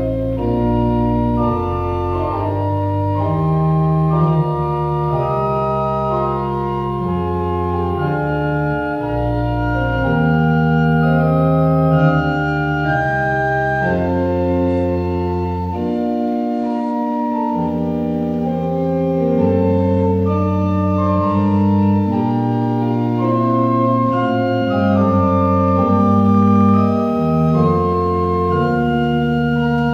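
Church organ playing a slow piece of held chords over sustained bass notes, the harmony moving every second or two.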